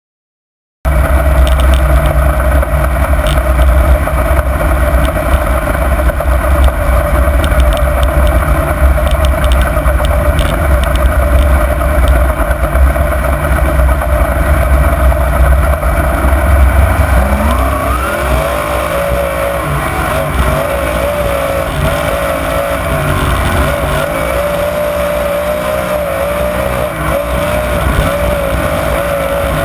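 Winged dirt-track sprint car's V8 engine heard from an onboard camera, cutting in loud about a second in. It runs steadily with a heavy low rumble at first, then about two-thirds through its pitch climbs and goes on rising and falling as the throttle is worked.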